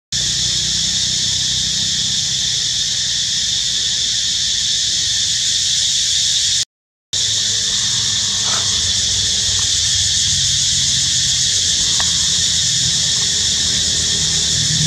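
Steady high-pitched drone of forest insects, with a low rumble underneath. The sound cuts out for a moment about seven seconds in.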